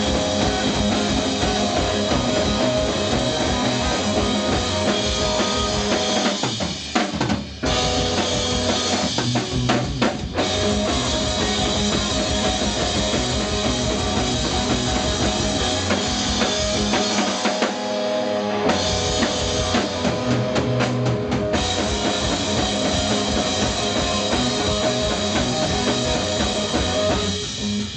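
Live rock band playing: a drum kit with bass drum, snare and cymbals drives the music under electric guitar and bass guitar. There are short breaks about seven and ten seconds in, and the drums drop away near the end.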